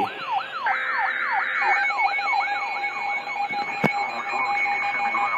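Overlapping electronic alert sounds: a siren-like tone sweeping down in pitch about three times a second, with a short buzzy Emergency Alert System data burst about two-thirds of a second in. Steady alarm tones join about two seconds in, and there is a single click near four seconds in.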